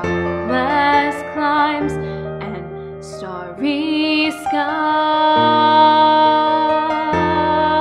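Music: a woman singing a slow, wavering melody that settles into one long held note, over sustained keyboard chords that change every second or two.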